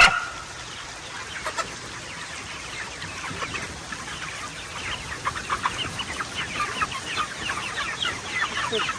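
A flock of chickens clucking and cheeping in many short, falling calls that grow busier in the second half. A single sharp knock comes right at the start.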